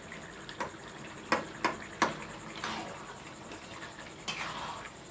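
Metal spatula stirring a watery vegetable gravy in a kadai: the liquid sloshs wetly, with several sharp clinks of the spatula against the pan in the first two seconds and another near the end.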